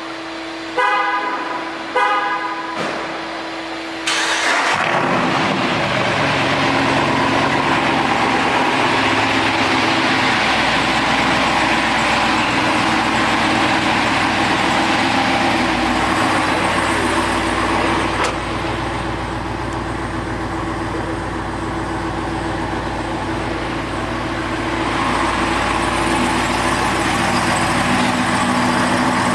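Two short car-horn honks, then the Jeep Wrangler Rubicon 392's 6.4-litre HEMI V8 exhaust comes in loud about four seconds in and keeps running steadily.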